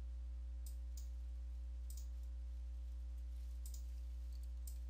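Steady low electrical hum with faint computer mouse clicks, a few ticks spread irregularly through it.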